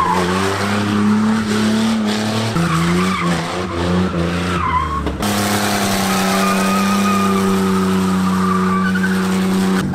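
Ford Mustang's engine revving hard while its tires spin and squeal on wet pavement. The engine pitch shifts a few times, then is held steady and high from about halfway.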